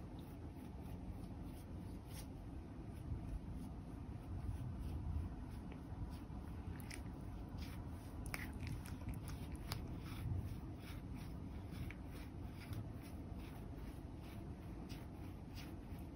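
Soft clicking and rustling of a plastic facial massage roller being rolled over a cat's head and fur. The clicks come thicker in the second half, over a low steady rumble.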